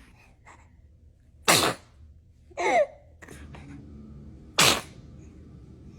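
A baby sneezing twice, about three seconds apart, with a brief falling voice sound between the sneezes.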